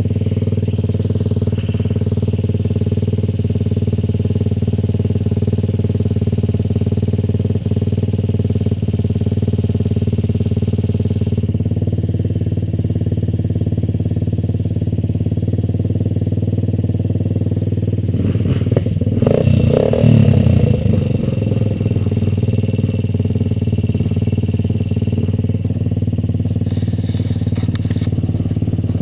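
Kawasaki KLX150 dirt bike's single-cylinder four-stroke engine idling steadily, close to the microphone. About two-thirds of the way through, the engine goes briefly louder and rougher for a couple of seconds before settling back to idle.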